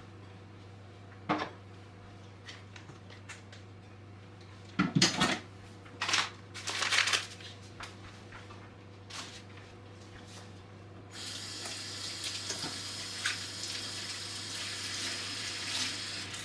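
A few knocks and clatters of kitchenware, the loudest cluster about five seconds in. About eleven seconds in, a kitchen tap starts running steadily into the sink and stops just before the end.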